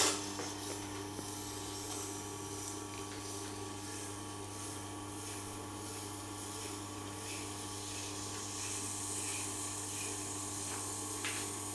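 Tormek sharpening machine running with a steady low hum while a serrated knife blade is drawn along its turning wheel, giving a soft, even rubbing hiss that grows a little in the second half.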